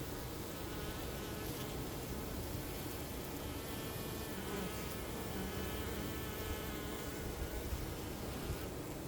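Honeybees buzzing steadily, many wingbeat drones overlapping with slightly wavering pitch.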